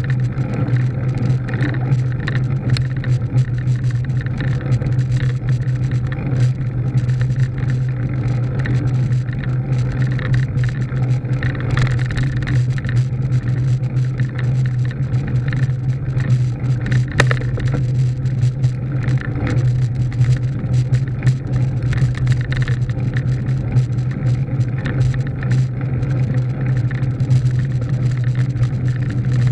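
Motor vehicle driving at a steady speed: an even engine hum under road and wind noise.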